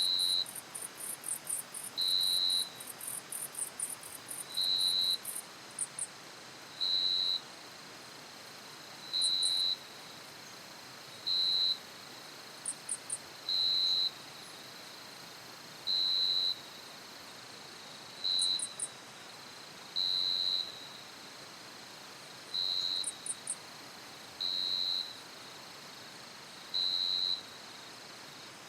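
Forest insects calling. One gives a short, even, high tone about every two seconds. Another gives a very high, rapid trill, continuous for the first five seconds or so, then in short bursts of three or four pulses every few seconds.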